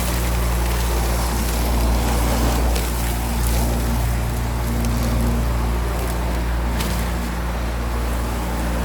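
Homemade industrial cyclone vacuum cleaner running steadily: a low motor hum under a rush of air, with a few faint ticks.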